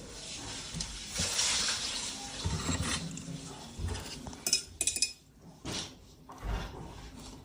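Clinks, knocks and scrapes of kitchen utensils and dishes being handled, with a cluster of sharp clicks about four and a half seconds in.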